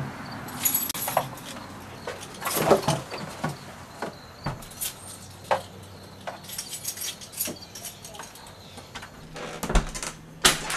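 Scattered clicks and metallic clinks of keys and a door lock being worked, with a heavier knock near the end.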